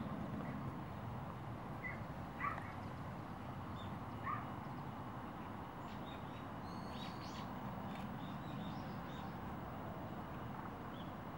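Outdoor ambience: a steady low background hum with scattered short bird chirps, a few early and a small cluster of higher, thinner chirps around the middle.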